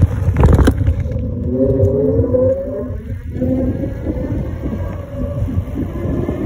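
Wind buffeting the microphone and a low rumble from an e-bike rolling along a concrete path, with a knock just after the start and a faint rising whine about a second and a half in.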